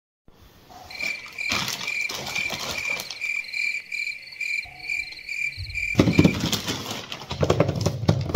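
Cricket chirping, an even pulsing about three chirps a second, which stops abruptly about six seconds in. Then the crinkle and rustle of a plastic courier mailer bag being handled.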